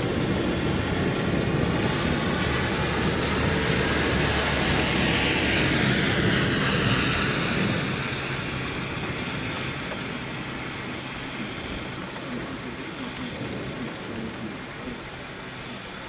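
A vehicle passing on a wet road: hissing tyres and a low engine hum swell to a peak about five seconds in, then fade away. Steady rain lies underneath.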